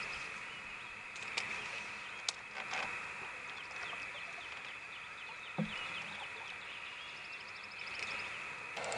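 Outdoor lake ambience of songbirds chirping and trilling over a steady high-pitched chorus, with a single dull knock a little past halfway.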